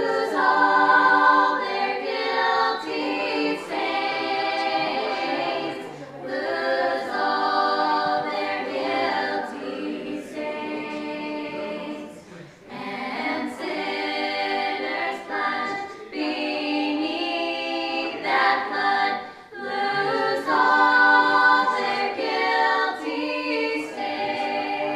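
A women's choir singing unaccompanied, sustained notes in long phrases with brief pauses for breath between them.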